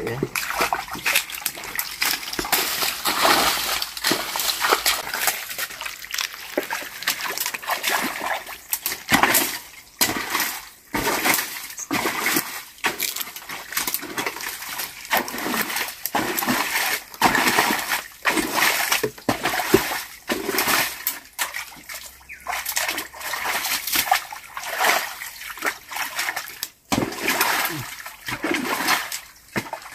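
Shallow muddy stream water splashing and sloshing in irregular bursts, about one every second or so, as a man wades through it and stoops to work with his hands.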